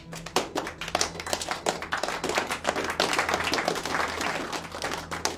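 A small seated audience applauding: scattered claps that build within about a second into steady applause.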